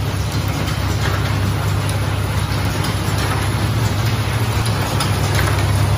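Automatic hair-clip assembly machine running: its vibratory bowl feeders give a steady low buzzing hum. Above the hum is a dense, even rattle with faint scattered clicks from parts and mechanisms.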